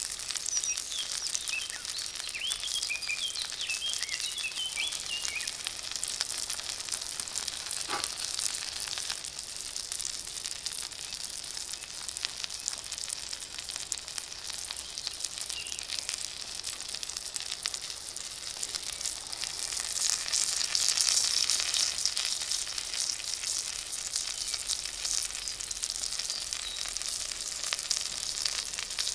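Steak frying in oil in a cast-iron pan: a steady, dense sizzle with fine crackling. It swells louder for a couple of seconds about two-thirds of the way through.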